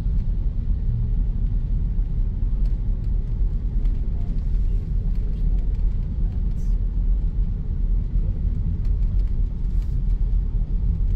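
Steady low rumble of a moving taxi, engine and tyre noise heard from inside the car's cabin.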